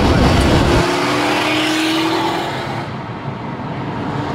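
A car accelerating hard. The heavy low rumble drops away suddenly about a second in, leaving a steady engine note that rises slightly in pitch and then fades.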